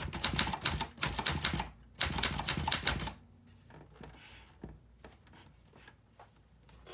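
Clover English typewriter being typed on quickly, its keys striking in two fast runs of about eight strokes a second with a short break between. About three seconds in the typing stops, leaving only a few faint clicks.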